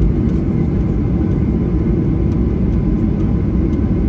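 Cabin noise inside a Boeing 737-800 while it taxis: a steady low rumble from the CFM56 engines at taxi power and the rolling aircraft, with a few faint ticks.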